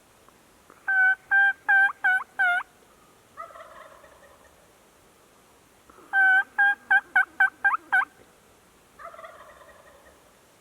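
Two series of loud hen-turkey yelps, the second run faster, each answered about a second later by a fainter, rattling gobble from a tom turkey.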